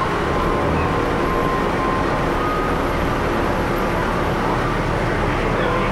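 Steady engine and road rumble of a moving bus, heard from inside the passenger cabin.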